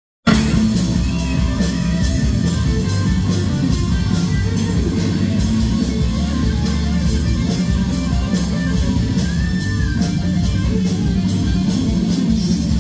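Rock band playing live: electric guitars over bass and drums, with a steady run of drum and cymbal hits. The music cuts in just after the start.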